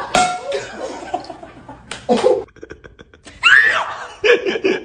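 People laughing and shrieking, with a high rising-and-falling cry partway through and a run of quick, evenly spaced laughs near the end.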